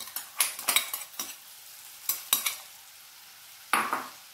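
A metal spoon scraping and clinking against a metal kadai as fried elephant yam pieces are stirred into the spiced oil masala, over a faint sizzle of frying. There are quick strokes in the first second and a half, two more just after two seconds, and a louder one near the end.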